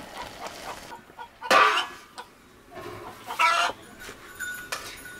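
Chickens clucking, with two louder, short calls, one about a second and a half in and one about three and a half seconds in.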